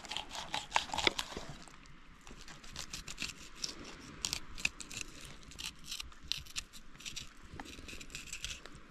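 Knife cutting fillets off a fresh-caught fish: a string of short, irregular, scratchy cutting strokes as the blade works through the flesh.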